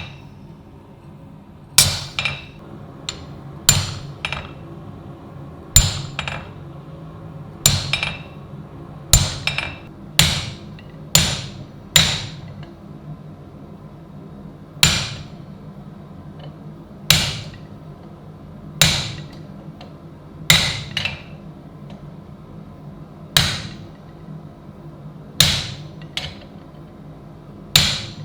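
Hand hammer striking steel in slow, irregular blows, often in quick pairs, each with a short bright metallic ring.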